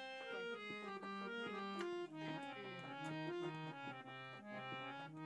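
Instrumental background music: a melody of held notes on a keyboard-like instrument, stepping from one pitch to the next.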